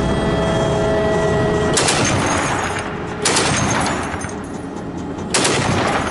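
Three loud bursts of gunfire, the first about two seconds in and the others roughly a second and a half to two seconds apart, each trailing off before the next. Before the first burst there is the steady whine of the armoured vehicle carrying the camera.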